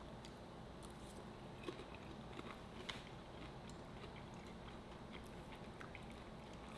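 Two people chewing food faintly, with a few small clicks and ticks, two of them slightly louder, over quiet room tone.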